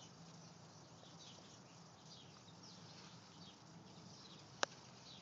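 Near silence: quiet room tone with faint, short high chirps scattered throughout, and one sharp click about four and a half seconds in.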